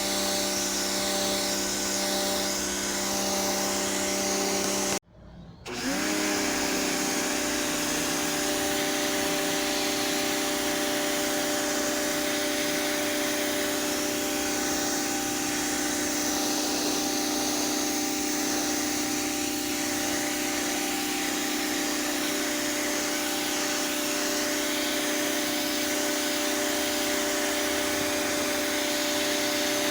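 Pressure washer running with a steady motor hum under the hiss of the spray. It cuts out abruptly for about half a second around five seconds in, then starts again and settles at a slightly higher pitch.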